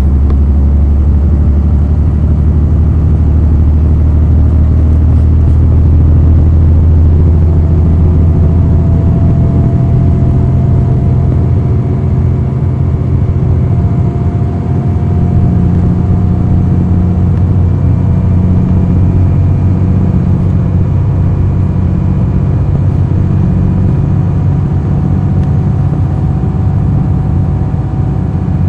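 Cummins ISL9 diesel engine of a NABI 40-foot transit bus, heard from the rear seats inside the bus, running steadily as the bus drives. A deep, loud drone carries through, with a faint whine slowly rising in pitch.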